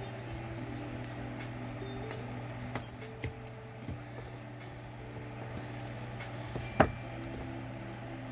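Small metal costume earrings clicking and clinking as they are handled: several light taps, with a sharper click near the end. Faint background music and a low steady hum run underneath.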